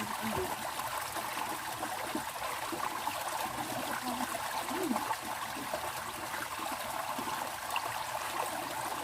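Stream water running steadily, with faint voices now and then.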